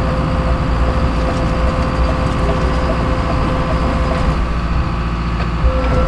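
Crawler bulldozer's diesel engine running steadily under way, with a constant whine over a low rumble, as the dozer creeps forward in gear toward the pile.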